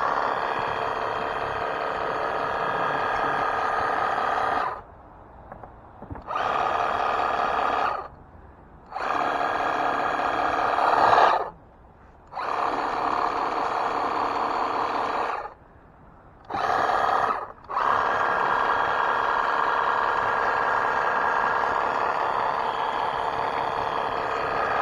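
Pressure washer running with a steady motor-and-pump whine as it rinses rust remover off bare car-body metal, stopping and restarting five times, with the pauses around the middle.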